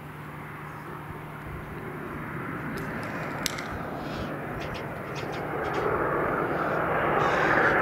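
Learjet 40XR business jet's twin turbofan engines giving a steady jet rush as it rolls along the runway after touchdown, growing louder over the last few seconds.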